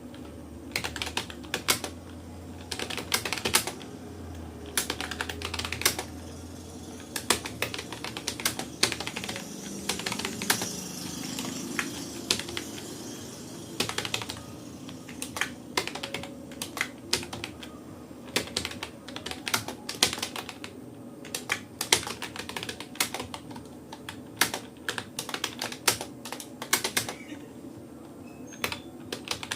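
Typing on a Rapoo computer keyboard: irregular runs of rapid key clicks broken by short pauses.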